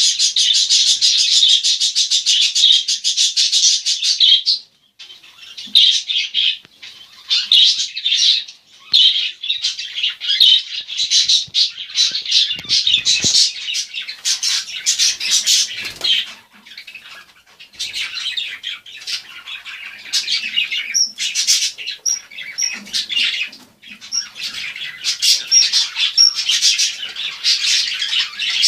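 Small pet parrots chirping and chattering. There is an unbroken run of rapid chatter for the first few seconds, then repeated bursts of chirps with short pauses between them.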